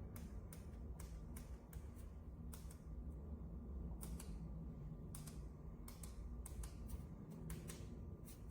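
Light, sharp clicks at irregular spacing, about two to three a second, over a faint steady low hum.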